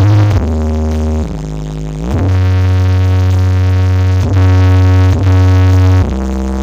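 Electronic DJ music played loud through a large carnival sound system: long held synth notes over heavy bass, with quick pitch slides as the notes change.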